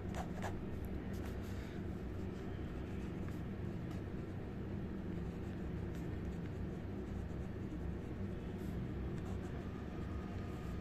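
Fine steel nib of a Jinhao 51A fountain pen scratching faintly across ruled notebook paper as words are written, over a steady low hum.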